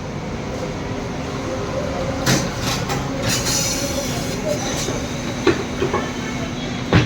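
Tyre-shop wheel machine running as a new tyre is worked onto an alloy wheel: a steady mechanical rumble with a squeal, broken by several sharp metallic knocks. A steady low motor hum sets in near the end.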